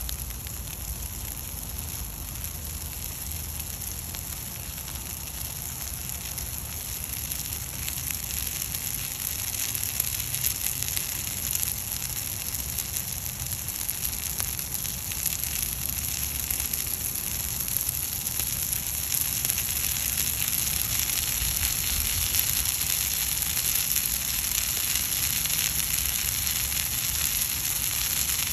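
A pile of dry leaves burning in a stone fire pit, the flames crackling and hissing steadily and slowly growing louder.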